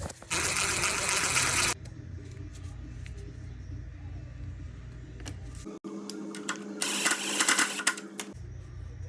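Tool noise while reconnecting parts on an engine: a loud burst of rapid mechanical clatter lasting about a second and a half, then quieter handling knocks over a low hum, and a second clatter burst about seven seconds in.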